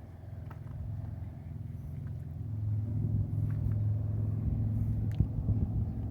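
Low engine rumble of a passing motor vehicle, growing louder a couple of seconds in, with a few faint footstep-like clicks.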